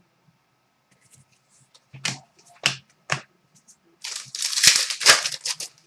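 Trading cards and plastic card holders being handled at close range: three sharp clicks, then about a second and a half of crinkling plastic near the end.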